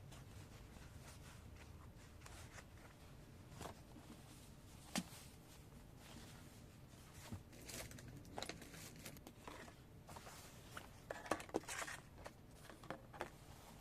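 Quiet handling noises: scattered light clicks and taps, with a short run of scratchy rustling about eleven seconds in.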